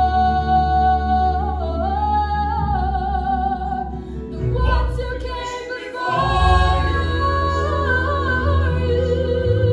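A woman singing solo, holding long notes with vibrato over a steady low accompaniment. The accompaniment drops out briefly about six seconds in and then comes back.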